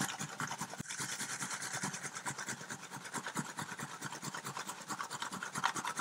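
Fresh green apple grated on the fine side of a metal box grater: rapid, even scraping strokes, several a second.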